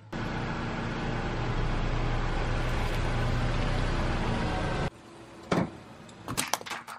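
A car running right beside the ground, its tyre rolling over wet concrete: a steady noise with a low hum. It cuts off abruptly about five seconds in, and a few sharp cracks and clicks follow.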